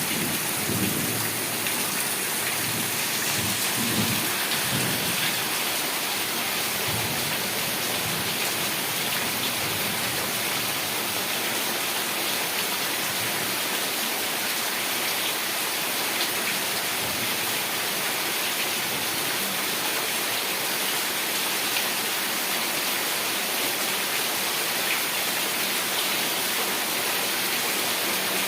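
Heavy rain falling steadily, a dense even hiss, with a low rumble of thunder over the first few seconds that fades away.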